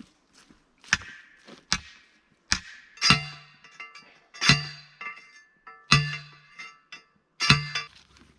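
Repeated hammer blows on a metal fence post, each ringing briefly with a metallic clang. There are about seven strikes: lighter ones at first, then four heavy ones evenly spaced about a second and a half apart.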